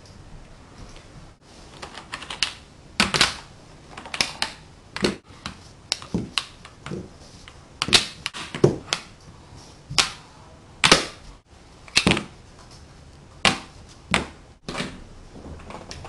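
Tegu magnetic hardwood blocks clacking as they snap together, a run of sharp wooden clicks, irregularly spaced, some single and some in quick pairs. The clicks start about two seconds in and stop shortly before the end.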